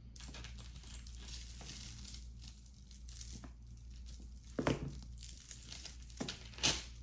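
Packaging crinkling and rustling as jewelry pieces are handled and unwrapped, with many small crackles and two sharper clacks, one about two-thirds through and one near the end.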